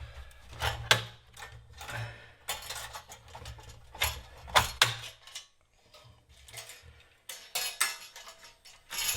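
Sheet-metal RF shield of an Amiga 500 being lifted off the motherboard, giving a series of light metallic clinks and rattles.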